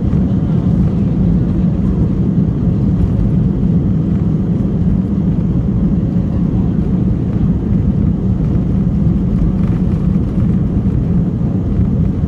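Cabin noise of an Airbus A320-family airliner, heard from a window seat over the wing: the jet engines run with a steady low rumble as the plane rolls along the runway.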